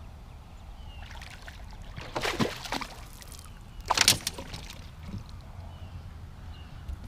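Two splashes of water, the second about two seconds after the first and a little louder, over a low steady rumble.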